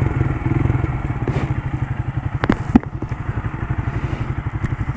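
Motorcycle engine running while riding, a steady low throb that eases slightly after the start. Two sharp clicks come about two and a half seconds in.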